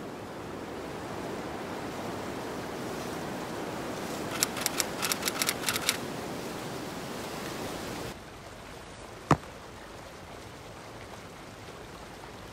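Steady wind-like rushing noise with a quick run of about ten sharp crackling clicks in the middle. The rush cuts off suddenly to a quieter outdoor background, and a single sharp click follows about a second later.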